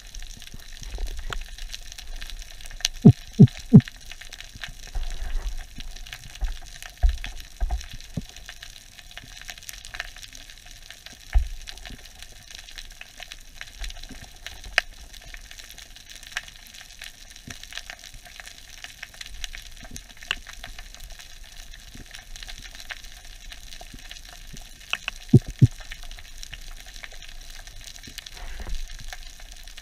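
Underwater crackling and clicking over a rocky reef, with short grunts made in a spearfishing diver's throat to lure fish: three quick low ones about three seconds in and three more near the end.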